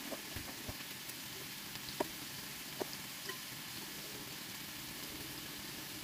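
Seasoned, deboned chicken thighs sizzling steadily in a hot pan, with a few small pops.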